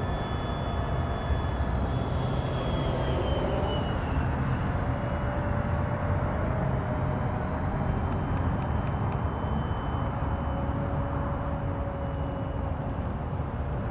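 Electric ducted-fan jet of an RC model F-16, its five-blade fan driven by a brushless motor, whining as it flies overhead. About three seconds in the whine drops in pitch as the jet passes by.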